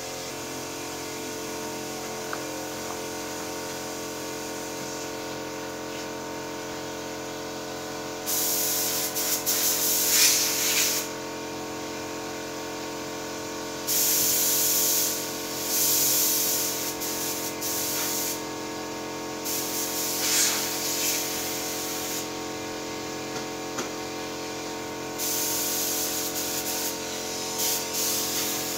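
Air spray gun hissing in four bursts of a few seconds each as clear coat is sprayed onto a car body, the first starting about a third of the way in. A steady machine hum runs underneath.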